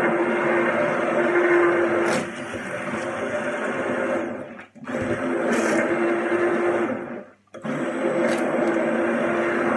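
Hand-held electric immersion blender running in a glass bowl, blending a runny egg and fish mixture. Its steady motor hum stops briefly twice, about halfway through and again a little later, and starts up again each time.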